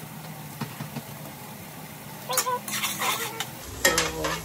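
Onions and bell peppers sautéing in butter in a pan, stirred with a utensil that clicks against the pan a few times.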